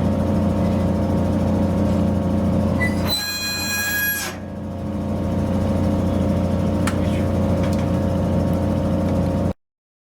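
Car engine idling steadily, the Mercedes-Benz C220d's diesel, with a brief high-pitched tone about three seconds in; the sound cuts off suddenly near the end.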